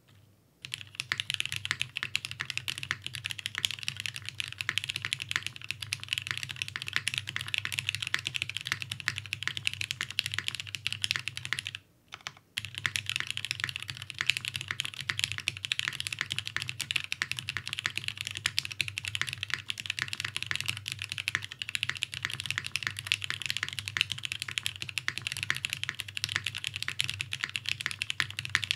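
Fast, continuous typing on a Merisi Works Ottantaquattro custom mechanical keyboard: lubed vintage Cherry MX Black linear switches on a carbon fiber plate with GMK Beta keycaps, a dense stream of key clacks. The typing stops briefly about twelve seconds in, then resumes.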